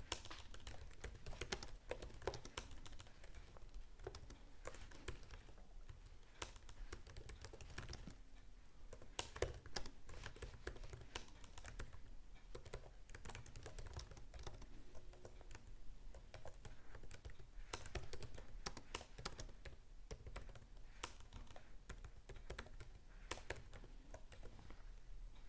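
Faint typing on a computer keyboard: irregular runs of keystrokes with short pauses between them.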